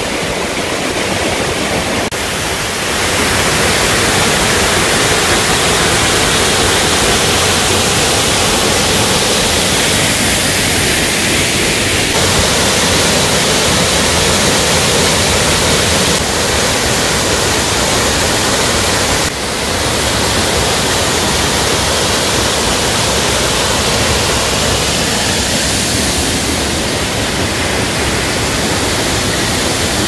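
A small waterfall of two streams pouring over a rock ledge into a pool, making a steady, loud rush of falling water. The tone shifts slightly a few times, with a brief dip about two-thirds of the way in.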